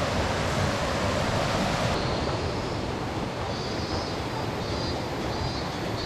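Mountain river rushing over the rocks of a gorge: a steady noise of flowing water that turns a little softer and duller about two seconds in.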